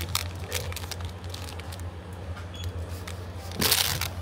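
Plastic-wrapped groceries handled and set into a plastic shopping basket: light clicks and rustles, then a louder rustle of packaging about three and a half seconds in. A steady low hum lies underneath.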